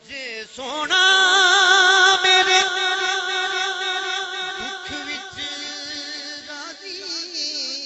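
A male naat singer holds one long, high, wordless note with a wavering vibrato, sliding up into it about half a second in. He releases it near the end and moves into a shorter ornamented phrase.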